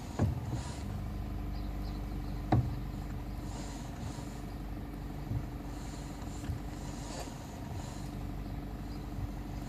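A vehicle engine running steadily, broken by two sharp knocks: one just after the start and a louder one about two and a half seconds in.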